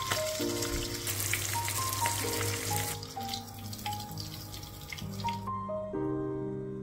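Floured young hake (pescadilla) frying in plenty of hot oil in a pan, a dense crackle that thins after about three seconds and stops about five and a half seconds in. Soft background music with single notes plays throughout.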